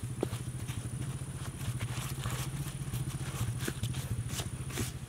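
Gloved hand scraping and brushing loose, dry soil, with small crackling clicks, over a steady low motor-like hum.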